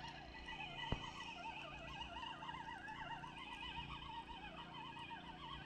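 Faint outdoor chorus of many overlapping animal calls, wavering up and down in pitch, with a single sharp click about a second in.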